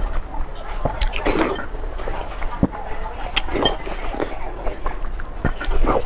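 A person slurping noodles from a bowl of spicy soup with chopsticks: several wet slurps a second or two apart, with small wet clicks of mouth and chopsticks between them.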